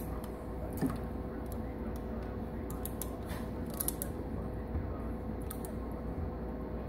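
Aquarium filter running with a steady hum, over which a turtle's claws click and scrape against the plastic basking platform and the tank as it tries to climb up, in scattered sharp clicks with a cluster between about three and four seconds in.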